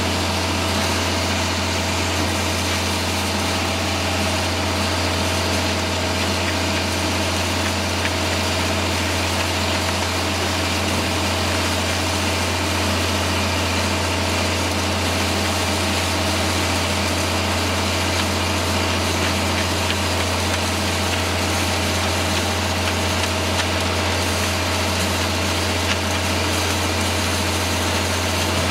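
Concrete pump truck's diesel engine running steadily under load while it pumps concrete, a constant low hum with a steady mid-pitched whine on top.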